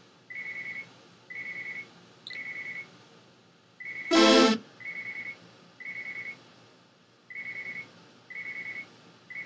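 Electronic beeping: a high, steady beep about half a second long, repeated in sets of three a second apart. About four seconds in, a short synth pad chord sounds once.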